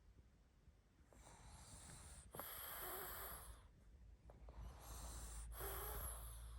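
Sleeping pug snoring and snorting: two noisy breaths about three seconds apart, each in two parts, with a short wheezy note in the louder second part.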